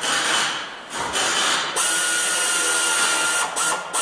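A power tool run in short bursts, then running steadily from about two seconds in with a hiss and a thin high whine.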